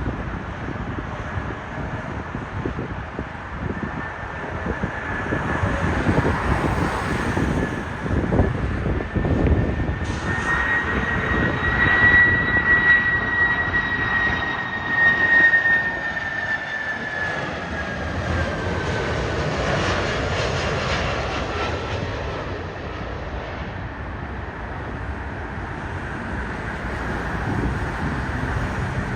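Boeing 767-300 freighter's twin jet engines running, a steady rumble with a high whine that climbs slightly, peaks about twelve seconds in, then slides down over the next ten seconds.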